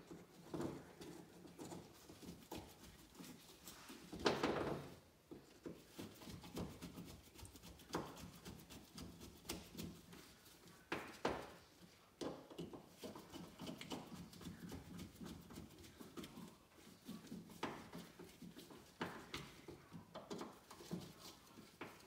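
Faint handling sounds of a small two-stroke motorcycle carburetor being reassembled by hand. Scattered light clicks and taps of small metal parts, with a few louder handling noises about four, eleven and nineteen seconds in.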